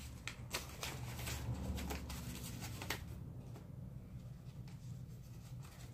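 Faint paper rustling and light handling clicks as an envelope is opened and a letter is taken out, busiest in the first three seconds, over a low steady room hum.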